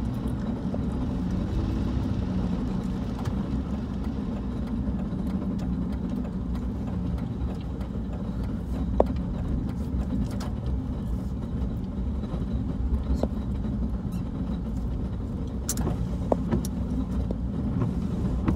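2001 Dodge Dakota pickup under way, heard from inside the cab: a steady engine and road rumble with a few faint sharp ticks.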